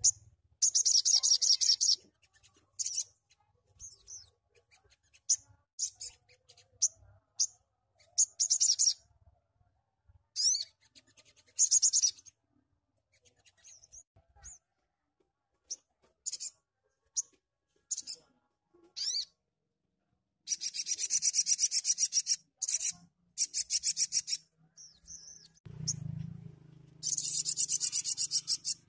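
Male olive-backed sunbird singing: about five loud, very fast buzzing trills of one to three seconds each, with short high chirps between them. A brief low bump near the end.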